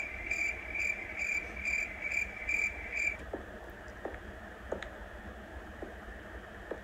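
Cricket chirping, used as a comic sound effect for awkward silence: a high, even chirp pulsing a little over twice a second that stops about three seconds in.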